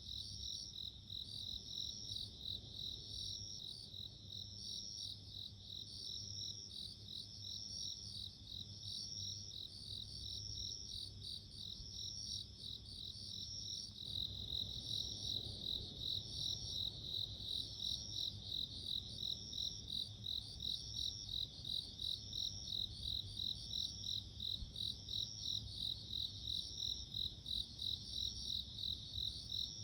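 Japanese bell crickets (suzumushi) singing in repeated ringing chirps. About halfway through, one becomes louder and steadier, chirping about twice a second over a faint low background rumble.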